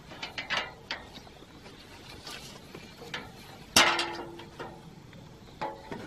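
Portable electric pruning shears cutting water sprouts from an apple tree: a series of sharp snips and clicks at uneven intervals. The loudest cut comes a little before four seconds in and is followed by a brief hum.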